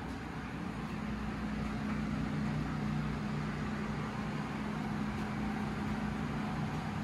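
Steady low hum and whir of running coin-laundry machines, with a couple of held low tones, growing a little louder over the first few seconds.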